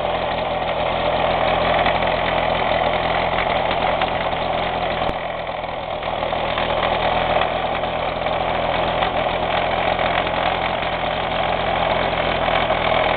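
Piaggio Ciao moped's single-cylinder two-stroke engine running steadily, warmed up, in sub-zero cold.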